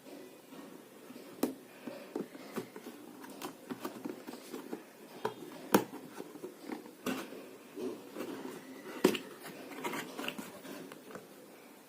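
Handling noises: irregular clicks and light knocks of small objects being moved about, with a soft rustle between them and a few sharper knocks spread through.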